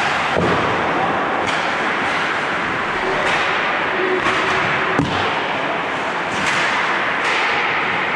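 Ice hockey skates scraping and hissing on the ice, with stick and puck clacks; a sharp crack about five seconds in is the loudest hit.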